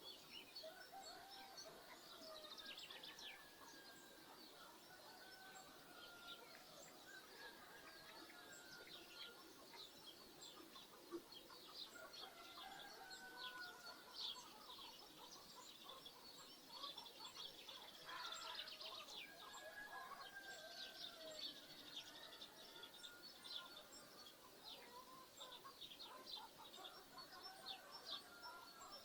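Small birds chirping busily and continuously, with domestic chickens calling and clucking in short gliding calls scattered throughout. Faint, as if heard at a distance.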